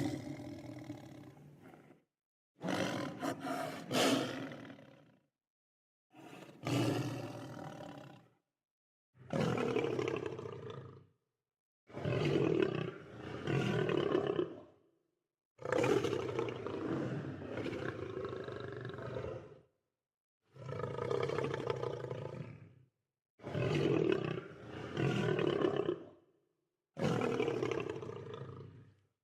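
Lion roaring about nine times in a row. Each roar lasts two to four seconds, some rising to a second peak, and fades out before a short gap of dead silence.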